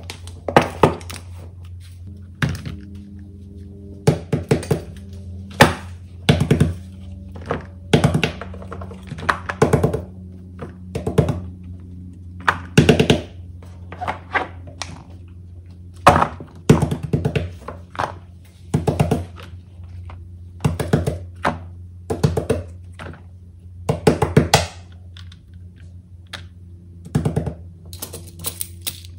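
Boxes and silicone pop-it fidget toys set down one after another on a tabletop: repeated thunks and taps in small clusters every second or two. Soft background music plays under them.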